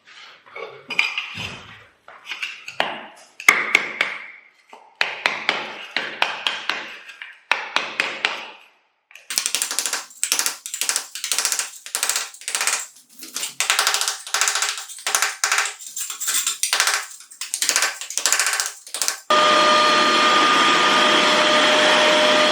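A hand scraper scraping leftover debris off floor tiles in quick repeated strokes, about two a second in the second half, then near the end a vacuum cleaner switches on and runs steadily with a whine.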